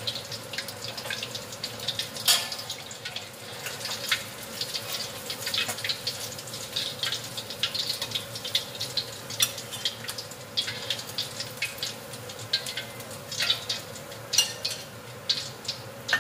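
Fish deep-frying in hot oil in a wok, the oil crackling and spitting with many small pops, browned and done, while the pieces are lifted out with a spatula. A louder click about two seconds in.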